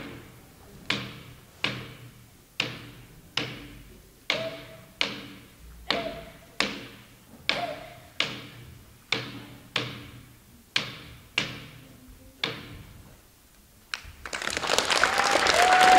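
Greenlandic frame drum (qilaat) beaten in a slow, steady drum-dance beat, a little more than one stroke a second, each stroke ringing out and fading. The drumming stops about three seconds before the end, and applause starts shortly after.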